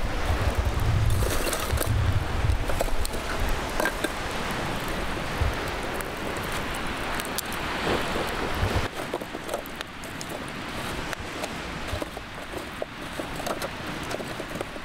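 Charcoal fire in a small metal brazier crackling, with scattered pops and ticks. Wind rumbles on the microphone until it drops away about nine seconds in.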